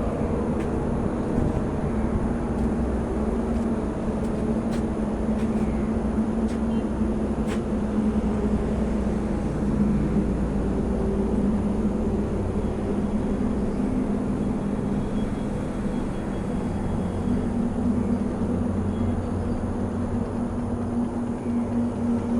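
An engine running steadily, a low drone with a steady hum.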